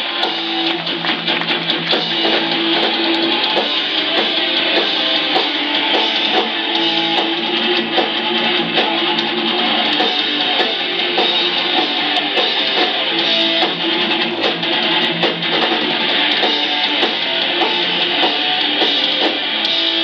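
Hardcore punk band playing live: distorted electric guitars with a drum kit, loud and continuous, heard through a camera microphone in the crowd.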